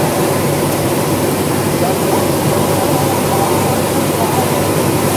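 Cessna 172's engine and propeller running steadily, heard from inside the cabin together with the rush of air around the cockpit, on final approach to the runway.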